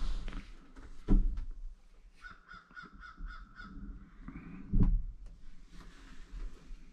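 A quick series of about seven harsh, crow-like calls, about four a second, starting about two seconds in, followed by a shorter rising call. Two dull thumps, the loudest sounds, come about a second in and just before the five-second mark.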